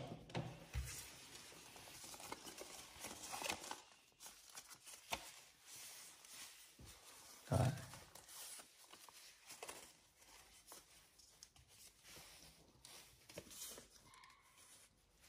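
Folded paper being handled: faint rustling and crinkling as a paper airplane's cut wings are opened out and shaped by hand. A few soft knocks against the desk, the loudest about seven and a half seconds in.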